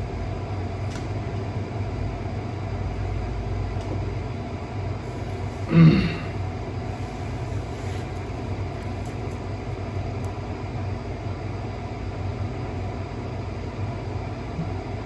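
A steady low hum and rumble, with one short voiced sound from a person about six seconds in.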